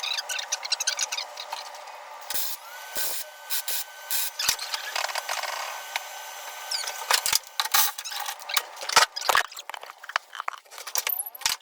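Workshop tool work: a steady rubbing, scraping noise broken by many irregular sharp clicks and knocks. A power tool whines up to speed and holds about two seconds in.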